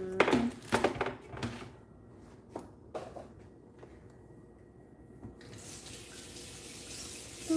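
Running water from a tap, a steady rush that starts about five and a half seconds in. It is preceded by a few sharp clattering knocks in the first second and a half.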